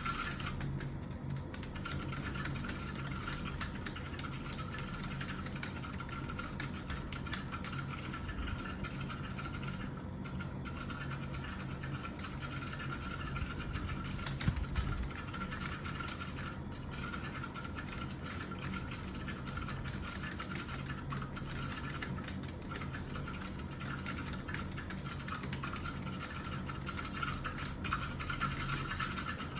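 Computer keyboard being typed on fast and continuously, a steady stream of key clicks with a few brief pauses, over a faint steady hum.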